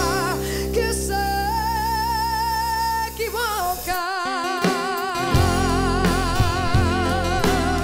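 Live pop-rock band with a female lead singer holding long notes with wide vibrato over drums and guitar. The bass and drums drop away for about a second about four seconds in, then the drums come back in.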